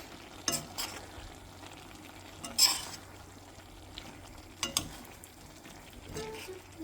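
A utensil stirring food in a pan, knocking and scraping against it about five times, loudest about two and a half seconds in, over a faint steady sizzle.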